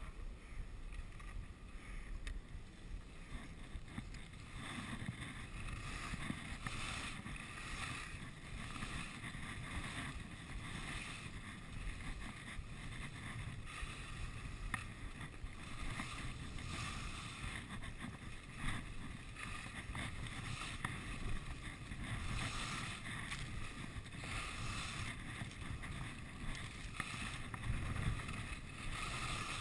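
Wind rushing over the camera's microphone while skiing downhill, mixed with the hiss and scrape of skis sliding on the snow.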